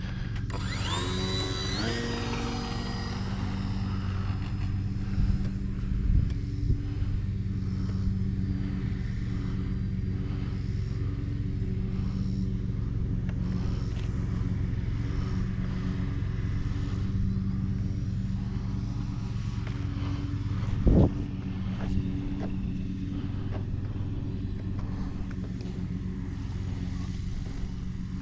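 RC trainer airplane's electric motor and propeller spooling up with a quickly rising whine for takeoff, then holding a steady buzz as the plane flies. A brief thump about two-thirds of the way through.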